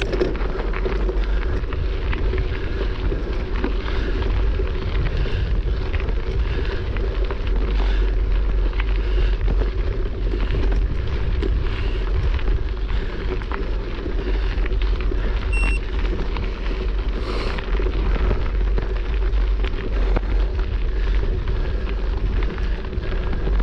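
Steady wind rumble buffeting the camera microphone during a slow uphill climb, with a brief electronic beep about two-thirds of the way through.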